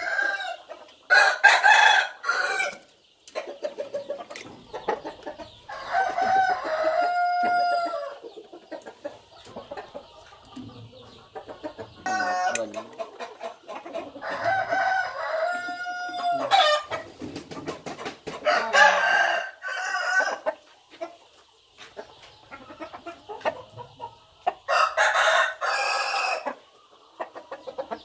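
Roosters crowing again and again, about five crows spread a few seconds apart, each a second or two long, two of them ending in a long drawn-out note that drops away at the end.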